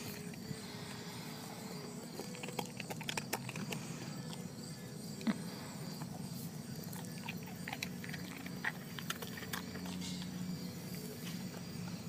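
A German shepherd chewing a hard dog chew treat, with irregular crunches and clicks, over a low steady hum.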